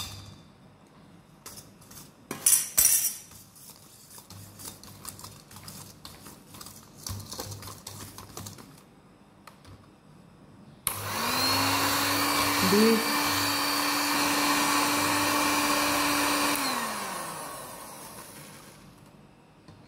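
A few clicks and knocks, two loud ones about two and a half seconds in, then about eleven seconds in an electric hand mixer starts and runs steadily, its beaters whisking egg and powdered sugar in a stainless steel bowl. Near the end its pitch drops and it fades out.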